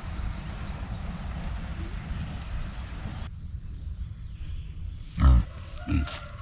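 A young pig grunting twice, about five seconds in: a loud short low grunt, then a softer one.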